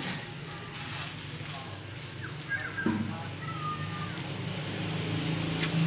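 A motor vehicle's engine hum grows steadily louder from about four seconds in, as if approaching. Short bird chirps come in the middle.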